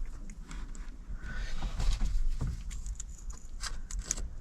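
Hands handling wires and a small plastic wire connector: scattered light clicks and rustling, as the wire is fed into the connector.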